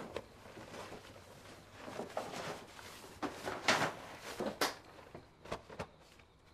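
A brown paper bag rustling and crinkling as sheets are pulled out of it, with irregular light knocks of things being handled. The sharpest rustles come in the middle of the stretch.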